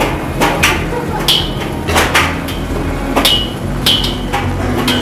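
Paintball markers firing single shots at an irregular pace, about ten sharp cracks, some followed by a brief high ringing.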